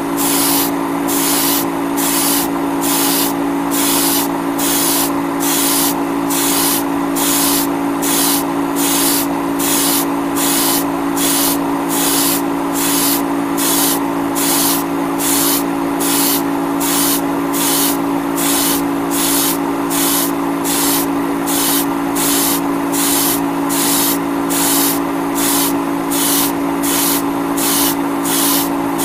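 Iwata Neo airbrush spraying paint, its air hiss swelling and falling in even pulses about twice a second, over a steady motor hum.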